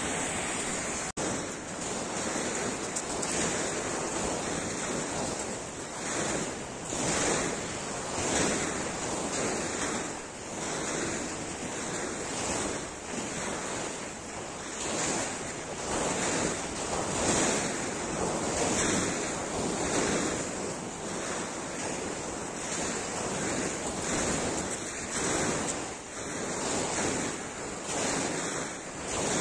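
Sea waves breaking and washing up a pebble beach, the rush swelling and easing every second or so, with wind on the microphone.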